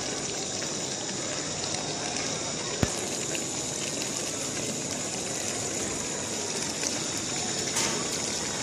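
Chicken pieces and tomatoes cooking over heat in a metal pot, a steady sizzling and bubbling as the karahi steams, with one sharp click about three seconds in.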